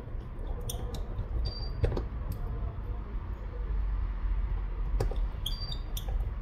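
Small sharp clicks and ticks of a precision screwdriver and tiny screws being handled, with the clearest clicks about two seconds and five seconds in, over a low steady rumble of handling noise.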